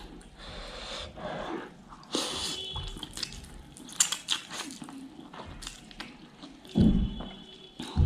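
A person eating noodles up close: wet slurping and chewing noises in short irregular bursts, with a louder puff of breath near the end.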